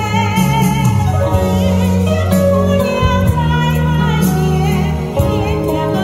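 A woman singing a Chinese song into a microphone, her voice wavering in vibrato over amplified recorded accompaniment with steady bass notes.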